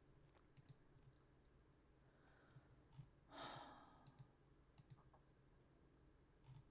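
Near silence with scattered faint clicks, and one person sighing heavily about three and a half seconds in.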